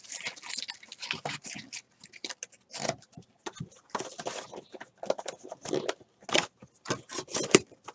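Trading cards and their cardboard box being handled: an irregular run of light clicks, taps and rustles, with a few sharper clicks near the end.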